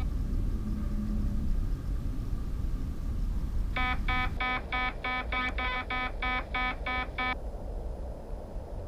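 Fish alarm of a BONDA wifi fish finder app beeping from a smartphone, a rapid run of electronic beeps about four a second that lasts some three and a half seconds, starting a little before the middle. The alarm signals fish detected under the ice hole by the sonar. A low steady rumble lies underneath.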